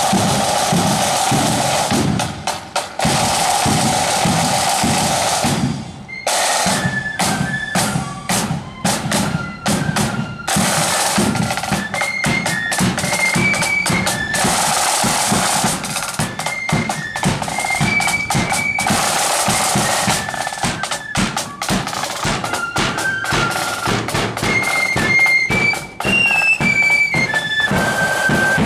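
Marching flute band: snare drums beat a rolling rhythm, then about six seconds in the flutes come in with a high tune over the drums.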